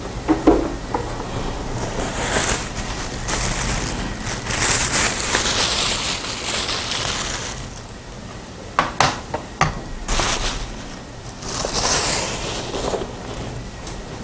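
Close crinkling and rustling, as of something being handled near the microphone, in two long stretches with a few sharp clicks in between.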